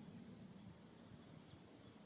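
Near silence: faint, steady low outdoor background hum, with a tiny high tick about a second and a half in.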